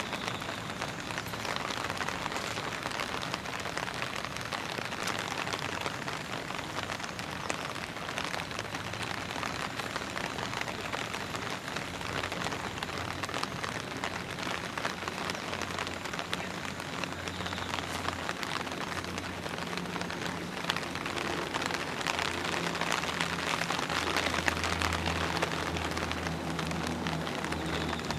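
Steady rain falling on leaves and ground, a dense even patter of many small drops.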